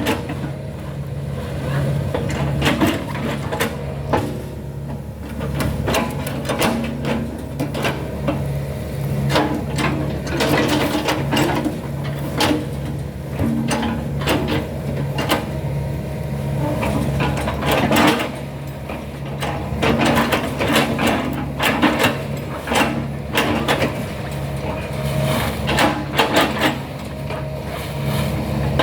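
Excavator's diesel engine running steadily, with frequent irregular knocks and clanks from the machine at work.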